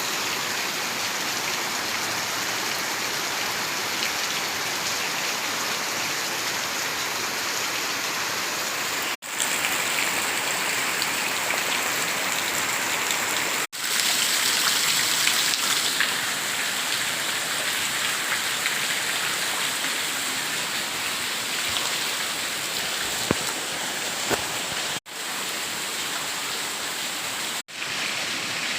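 Steady rain falling and pattering on surfaces, a continuous even hiss. The sound drops out abruptly four times for a split second where the recording is cut and resumes at once.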